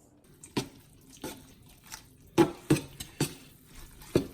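A utensil clinking and knocking against a pot or pan as noodles in sauce are stirred, with about seven irregular sharp taps and some wet stirring in between.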